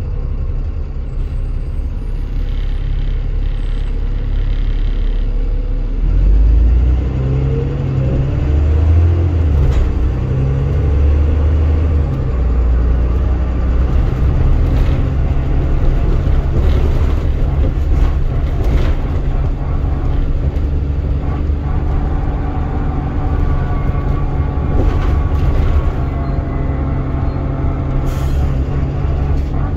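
Trident 2 double-decker bus heard from the upper deck: the diesel engine idles, then revs up with rising pitch as the bus pulls away about six seconds in, and settles into steady running with brief rattles from the body and fittings.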